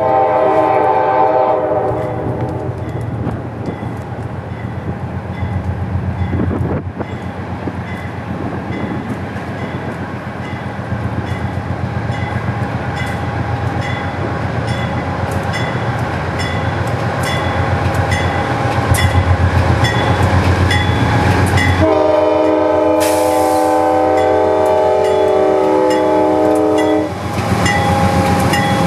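Amtrak GE B32-8WH locomotive's K5LA five-chime air horn: a short blast at the start and a longer one from about 22 seconds in. Between them the locomotive's diesel rumble and wheel clicks over the rail joints grow as the train draws up and passes, with a grade-crossing bell dinging steadily.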